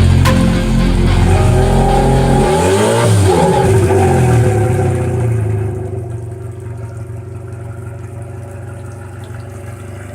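Mercury 115 HP outboard motor running, with its pitch gliding up and down, then dropping to a quieter, steady run about five seconds in.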